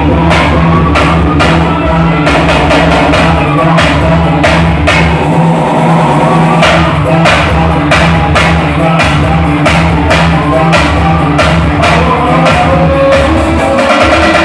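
Loud live band music with a steady drum-kit beat over sustained bass notes and a melody line on top, with no singing.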